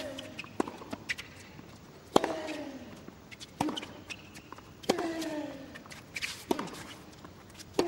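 Tennis rally: sharp racket-on-ball strikes about every second and a half, with a player's short grunt falling in pitch on every other stroke, and softer ball bounces and footfalls between.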